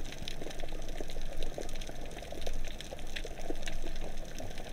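Underwater ambience: a steady crackle of many small, irregular clicks over a low rumble.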